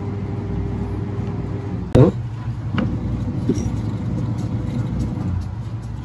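Hard plastic parts of a washing machine's drive coupling (panja) being handled and fitted onto the gearbox shaft: one sharp clack about two seconds in, then a couple of lighter clicks. A steady low hum runs underneath.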